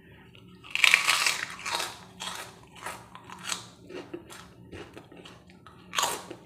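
A bite into a plain, dry kerupuk (puffed cracker), with a loud crunch about a second in, then crunchy chewing in quick short strokes, and another loud crunch near the end.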